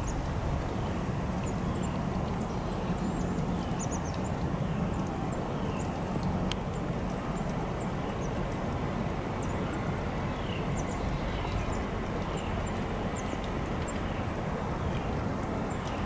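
Steady outdoor rumble and hiss with faint, repeated high bird chirps through it, and a single sharp click about six and a half seconds in.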